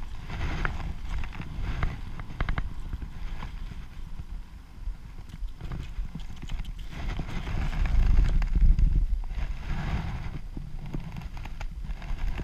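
Spinning reel being cranked, a rapid run of clicks, as a small trout is wound in; then knocks and rustling as the fish comes in on the line against bankside grass. A loud low rumble rises about eight seconds in.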